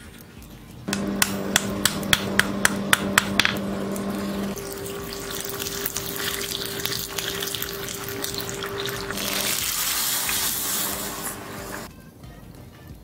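Red-hot Damascus steel fillet knife blade quenched in a tub of water: sharp crackles for the first few seconds, then a steady sizzling, bubbling hiss that cuts off suddenly about a second before the end, over a steady low hum.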